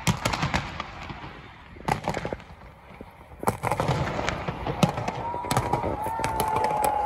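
Aerial fireworks bursting in quick bangs and crackles. They ease off briefly around the middle, then pick up again.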